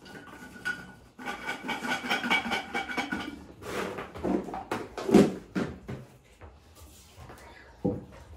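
Knocks and clatter of food storage pots and lids being handled as biscuits are packed into them, a handful of separate knocks with the loudest about five seconds in. Before the knocks, a thin, steady high-pitched sound lasts about two seconds.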